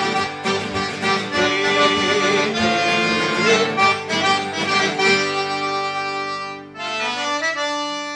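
Accordion-led music, busy with quick notes for the first five seconds or so, then settling into long held chords with a brief dip before the last one.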